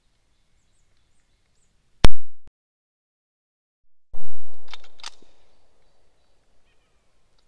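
Handgun fired: one sharp, very loud shot about two seconds in, cut off short, then a second loud bang about two seconds later with a longer decaying echo and a couple of sharp clicks in its tail.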